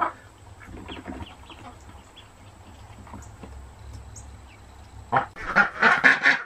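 Golden 300 hybrid mother duck giving a run of harsh, raspy quacks in the last second and a half, the sound of a hen guarding her newly hatched ducklings.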